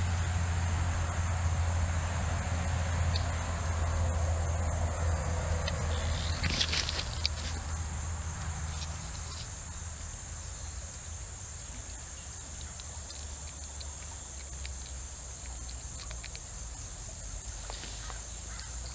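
Insects droning steadily, one continuous high-pitched buzz, with a low rumble underneath that fades out about halfway through.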